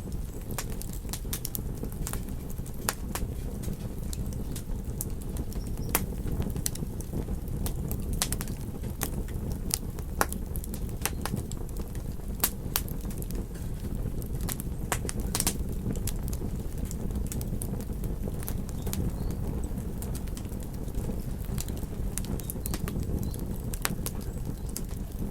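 Wood fire crackling: many sharp, irregular pops and snaps over a steady low rumble of burning flames.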